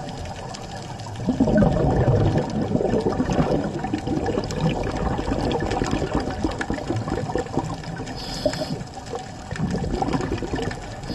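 Water heard underwater: a constant low rush with bubbling and crackle, rising into louder bubbling about a second in and again near the end.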